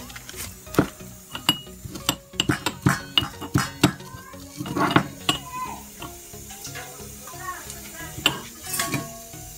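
A metal spoon stirring and scraping in a steel pot, and steel utensils and containers clinking and knocking together in a string of irregular clicks.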